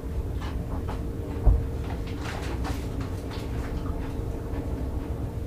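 Kitchen handling noises from things being moved about on a work counter: one dull thump about a second and a half in, then a run of light clicks and taps, over a steady low hum.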